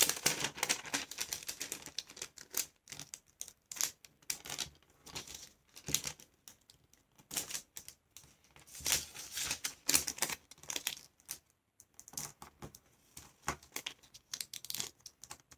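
A rectangle of paper being folded and creased by hand on a wooden tabletop: irregular crisp rustles, taps and scrapes as the fingers press down the folds.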